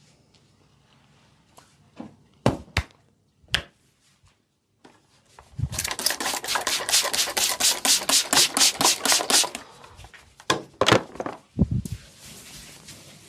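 Wooden massage tool worked quickly back and forth over skin, an even run of scraping strokes about five a second lasting some four seconds, with a few sharp knocks before and after.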